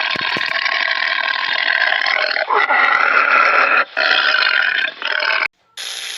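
An animal's long, throaty calls, several in a row broken by short pauses and cut off suddenly near the end.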